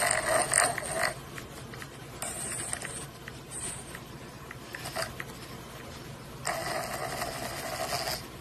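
Loud snoring: rattling, rasping snore breaths in separate bursts, a long one at the start, two shorter ones a few seconds in, and another long one from about two-thirds of the way through.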